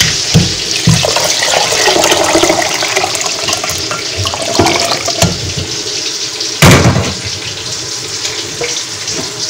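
Meat stock being poured over parboiled rice in a metal pot: a steady splashing pour, with a sharp clunk about two-thirds of the way through.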